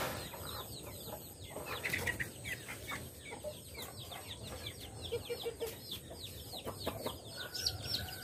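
Chickens clucking and peeping in a farmyard: a steady stream of short, high, falling chirps, with a few lower clucks about five seconds in.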